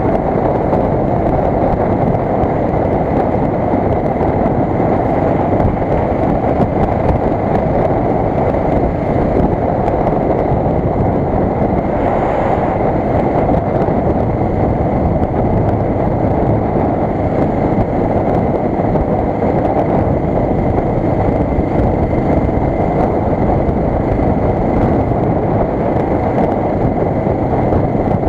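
Suzuki DR 600's single-cylinder four-stroke engine running at a steady cruise, mixed with wind and road rush on the bike-mounted camera.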